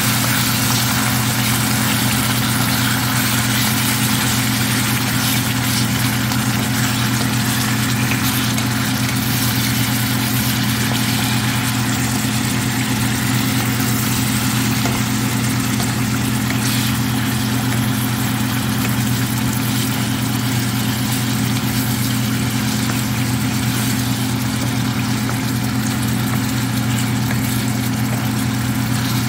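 Chicken livers and onions sizzling in a stainless steel frying pan while a wooden spoon stirs them. A steady low hum runs under it and is the loudest part.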